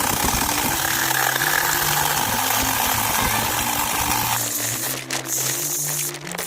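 Mini electric chainsaw cutting through a thick log, with a steady buzzing noise that changes and thins out about four and a half seconds in. Background music plays underneath.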